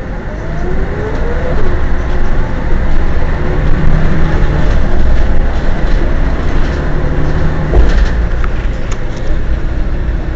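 Mercedes-Benz O 405 N city bus under way, its diesel engine pulling with a rising whine over the first two seconds as the noise builds, then running steadily, with a brief low surge about eight seconds in.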